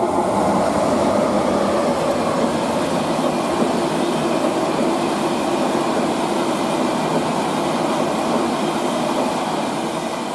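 ÖBB Railjet passenger train passing through at speed without stopping: a steady rush of wheels and carriages that eases off near the end.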